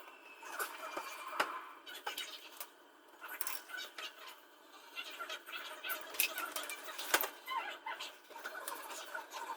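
Scattered light clicks and knocks from handling parts and tools during plumbing work, with one sharper knock about seven seconds in.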